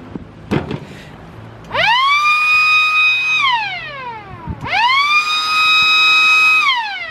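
A siren sounding twice: each time it rises quickly to a steady high note, holds it for about a second and a half, then falls away. A short knock comes about half a second in, before the first wail.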